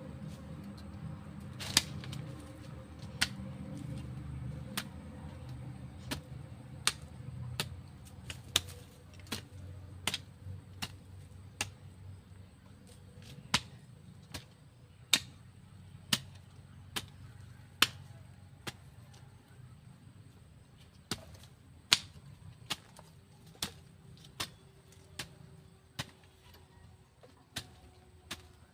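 Hand hoe chopping into soil, about one sharp strike a second and uneven in strength, as a vegetable bed is dug by hand.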